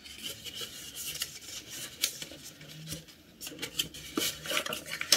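Cardboard retail box being opened by hand and the grips slid out: irregular scraping and rubbing of cardboard, with scattered light clicks.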